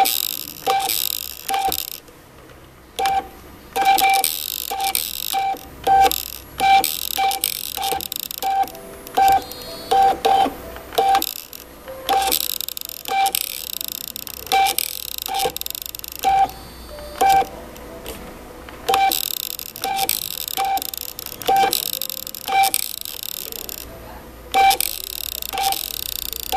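Extruder stepper motor of a homemade RepRap Prusa Air 2 3D printer feeding filament in short pulses. It gives a string of brief beeping tones, all at one pitch and a few a second, with bursts of high-pitched whine.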